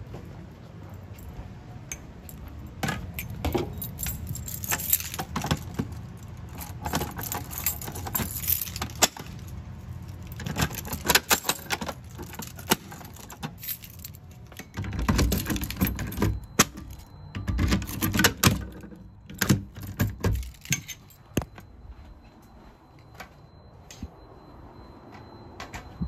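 Keys jangling and clinking in irregular bursts, mixed with knocks and thuds of handling, heaviest around the middle and dying down near the end. A faint, steady high tone runs under the last third.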